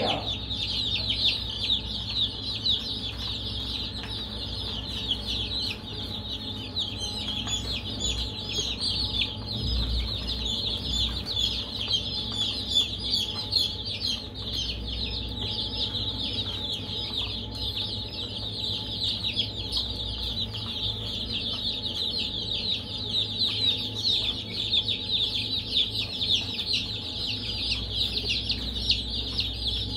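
A group of baby chicks peeping without pause, a dense chorus of short, high cheeps, over a faint steady low hum.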